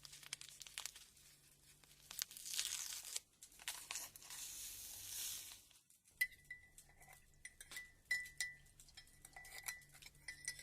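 Sugar being added to a cup of coffee with a soft granular hiss, followed from about six seconds in by a spoon stirring the coffee, clinking lightly and repeatedly against the cup with a short ring on each tap. All of it is faint.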